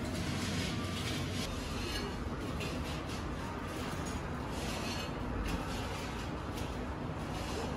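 Café room ambience: a steady low hum with light clinks of cups and dishes scattered through it.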